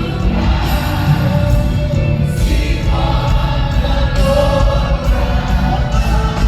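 Live gospel praise-and-worship music: many voices singing together over a band with a heavy, steady bass.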